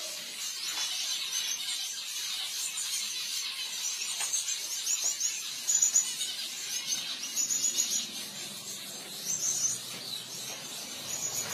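Caged Gouldian finches chirping: many short, high-pitched calls in quick clusters, overlapping from several birds.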